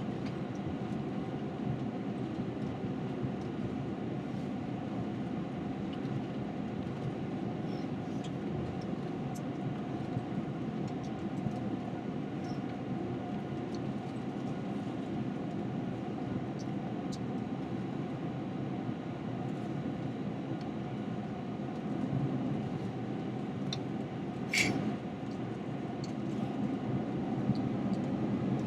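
Cabin noise inside an Airbus A321: a steady engine hum over a rumbling, rattling ride, with faint ticks and one sharp click about 25 seconds in.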